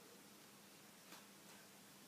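Near silence with a faint steady hum, broken about a second in by one faint short click of a lock pick moving against the pins inside a padlock's keyway.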